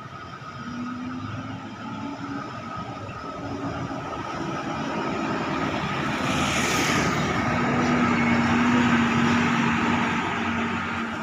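Road traffic: a motor vehicle's engine and tyre noise building up, loudest about three-quarters of the way through, then easing off slightly.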